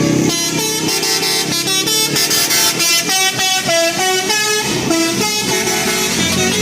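Bus's Basuri telolet musical air horn playing a quick tune, one short note after another in changing pitches.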